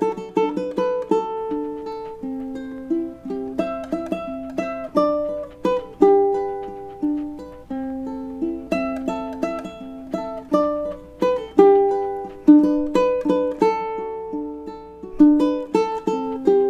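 Solo ukulele playing a picked melody over plucked chords, the notes ringing out and decaying one after another at a steady pace.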